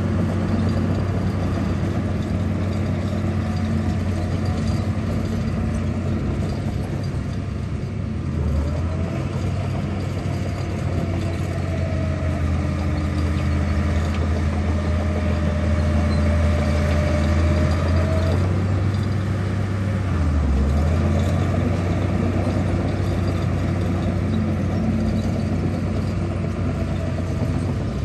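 Radio-controlled construction model running: a steady low engine-like hum with a thinner whine that wavers up and down in pitch for several seconds midway, dipping briefly twice.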